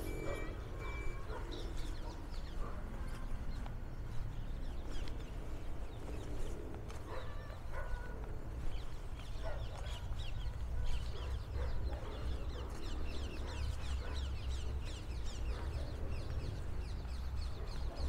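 Outdoor park ambience: birds calling with many short, quick chirps, busiest in the second half, over a steady low rumble.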